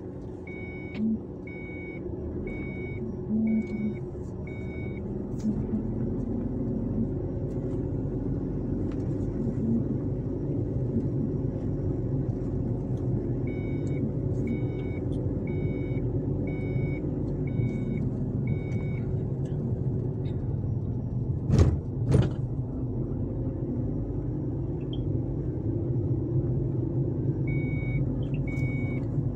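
Car cabin sound while driving slowly: steady engine and tyre rumble, with an electronic warning chime beeping about one and a half times a second in three runs of several beeps. Two sharp thumps come a little after the middle.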